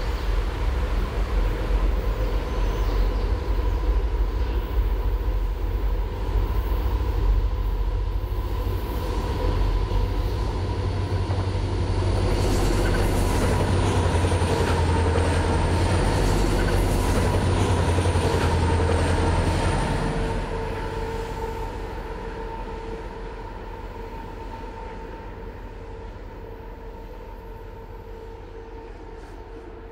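Pair of diesel locomotives in a helper set, running light, approaching and passing close. Deep engine rumble and a steady hum, with dense wheel clicks and a thin high whine at the loudest point, about halfway through, then fading as they move away.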